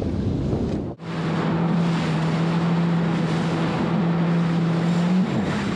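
Wind buffeting the microphone over sea noise, then, after a sudden break about a second in, a jet ski's engine running under way at a steady pitch with wind and rushing water. The engine pitch steps up slightly near the end.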